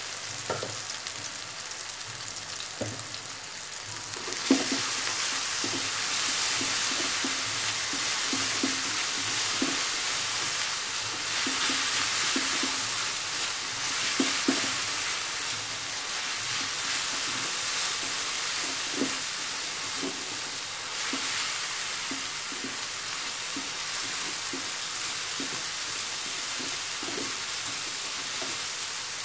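Spice paste and chopped spring onions sizzling in oil in an aluminium wok, stirred with a spatula that knocks and scrapes on the pan. The sizzle gets louder about four seconds in.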